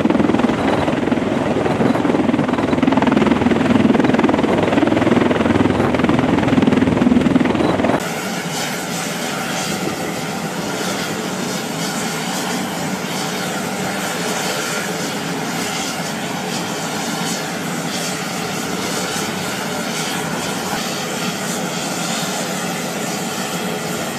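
MV-22B Osprey tiltrotor hovering overhead, its proprotors and engines making a loud, steady deep rotor noise. About eight seconds in it cuts off abruptly to a quieter, thinner steady rushing noise.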